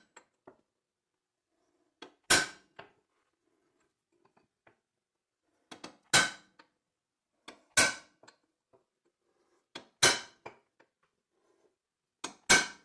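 Hammer blows on the steel yoke of a front axle shaft, knocking out a Spicer U-joint. There are five hard metallic clangs about two seconds apart, each with a ring and a lighter tap just before it.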